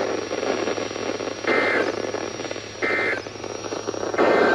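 Three short warbling data bursts of an Emergency Alert System (SAME) header, about a second and a half apart, heard through steady radio static and hum, marking the start of a new alert.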